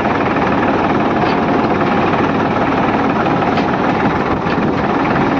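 Farm tractor's diesel engine running steadily as the tractor drives along, heard close from the driver's seat as a loud, fast, even chugging.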